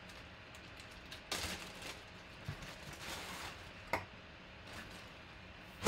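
Clear plastic zip-top bag crinkling as a jersey is handled and slid out of it, in a few short rustling bursts with a sharp click about four seconds in.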